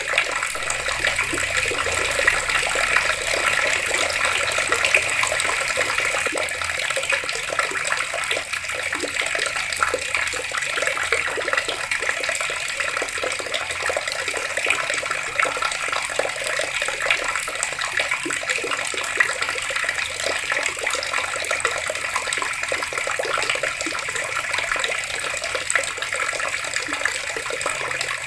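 Water taps running and splashing steadily, a dense even rush of water with small spattering splashes throughout.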